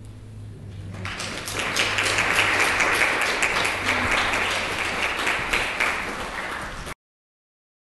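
Congregation applauding: clapping starts about a second in, swells, then thins, and is cut off abruptly near the end.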